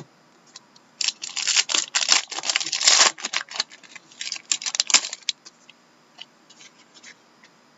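Hockey trading cards and their packaging being handled: a dense run of crinkling and clicking for about four seconds, then a few scattered clicks.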